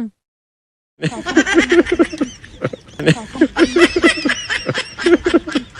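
Dead silence for about a second, then a person laughing in quick, repeated bursts.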